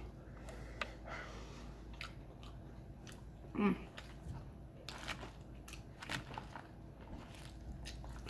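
A person chewing a mouthful of pepper steak and rice close to the microphone, with scattered wet mouth clicks and smacks. There is one short hum about three and a half seconds in.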